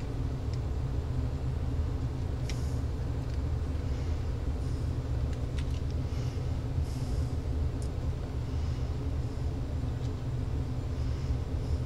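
Steady low background rumble, with a few faint clicks and short scrapes of a small screwdriver driving screws into a cordless phone handset's plastic shell.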